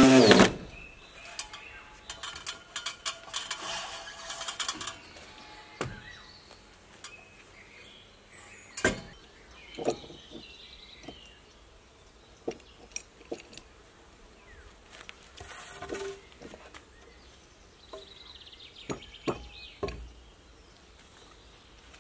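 A loud running sound cuts off about half a second in. After it come scattered knocks, scrapes and light metallic clinks of hand work on timber and tools, with the sharpest knocks about nine and ten seconds in.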